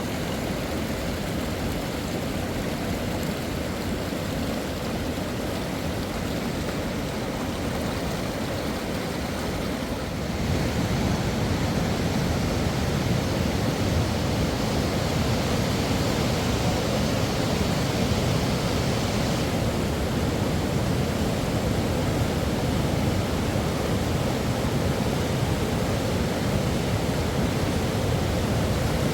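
Steady rushing of flowing river water, a continuous noise that gets louder about ten seconds in.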